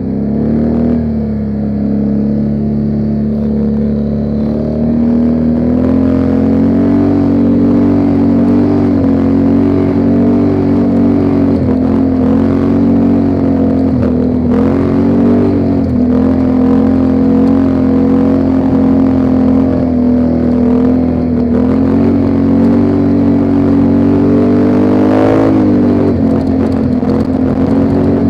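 ATV engine running while riding, its pitch rising and falling slightly with the throttle, with a brief rev about three seconds before the end.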